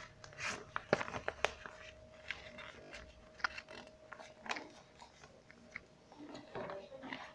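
Faint crinkling and rustling of notebook paper being handled and laid into a container of water, with scattered small clicks and crackles.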